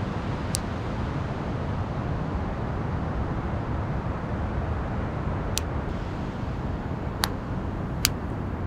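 Steady low rush of ocean surf and wind, with a beach campfire giving four sharp pops, the two loudest near the end.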